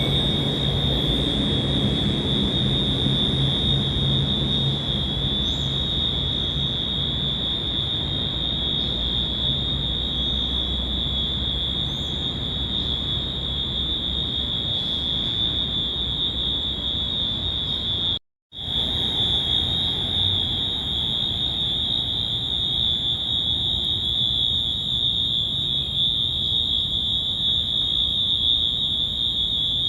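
Stadium fire alarm sounding a continuous high-pitched tone, with low traffic rumble underneath that is stronger in the first few seconds. The tone cuts out for a moment about 18 seconds in, then carries on unchanged.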